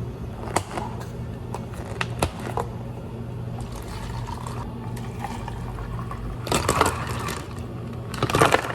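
Drink-making sounds at a cafe counter: a few sharp clicks and knocks, then two short clusters of clattering near the end, over a steady low machine hum.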